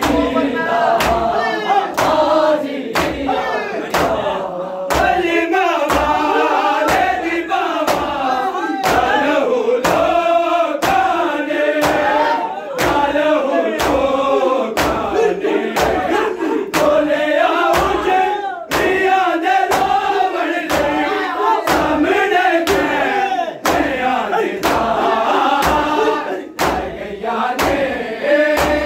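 Men chanting a mourning lament together while beating their chests with their palms, the slaps falling in a steady rhythm of about two a second.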